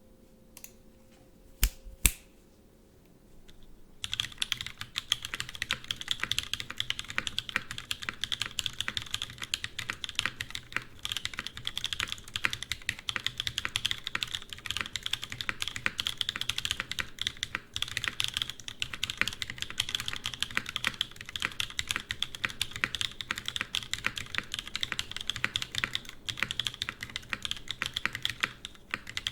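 Mechanical keyboard being typed on: a Smith & Rune Iron180 with a carbon-fibre plate and Whipped Cream switches (mechanically broken-in Cream linear switches). Two sharp clicks come about one and a half and two seconds in, then steady rapid typing starts about four seconds in.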